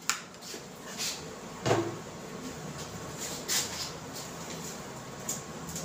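Kitchen items being handled off-screen: a few light clicks and knocks, the loudest about two seconds in.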